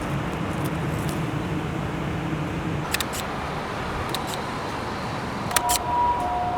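Camera shutter firing three times, each shot a quick double click, over steady traffic noise. A low vehicle hum fades out about three seconds in, and a steady two-note tone starts near the end.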